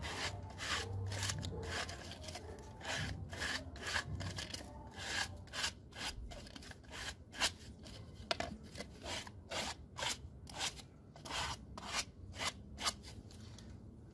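Sandpaper rubbed by hand over the cut end of a 4-inch PVC pipe, smoothing off the burrs left by the cut: repeated short scraping strokes, about two a second.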